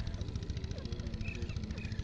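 An engine running steadily with an even, rapid putter, with a few faint short chirps over it.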